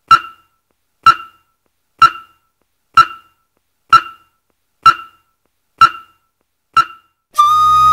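A short, bright pitched ping repeating evenly about once a second, eight times, each dying away quickly. Near the end, flute music begins with a held note.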